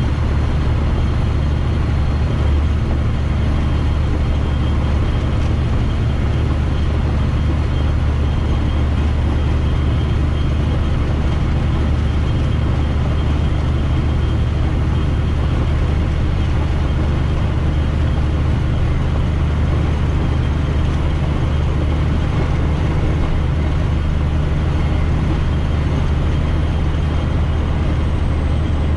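Heavy diesel truck running steadily: a constant low engine drone with road and cab noise, unchanging throughout.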